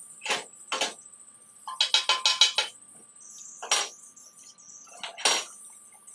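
Metal striking steel in sharp, ringing clinks: two strikes, then a quick run of about seven, then two more single strikes.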